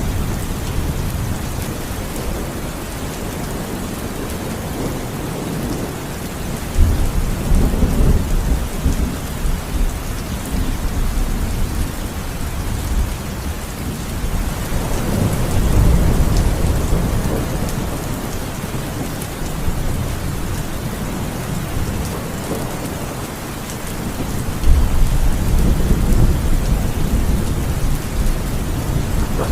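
Steady heavy rain falling, with low rolls of thunder rumbling three times: about a quarter of the way in, near the middle, and near the end.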